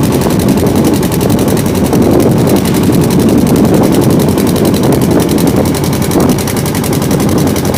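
Boat engine running hard with a rapid, even pulse, mixed with wind buffeting the microphone and water rushing past the hull in rough, choppy water.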